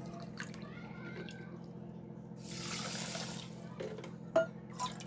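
Water poured from a plastic bottle into a steel measuring cup, with a louder rush of pouring about two and a half seconds in and a few light knocks of the cup near the end, over a steady low hum.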